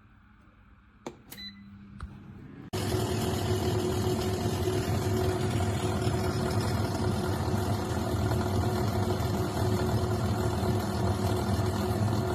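A few clicks and a short beep from the Xiaomi Smart Air Fryer 6.5L's controls, then, a little under three seconds in, the fryer's fan starts suddenly and runs steadily with a constant hum and rush of air as it cooks.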